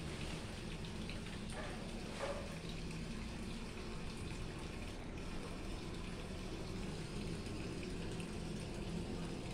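Steady running or splashing water in a garden koi pond, with a couple of faint short splashes about two seconds in.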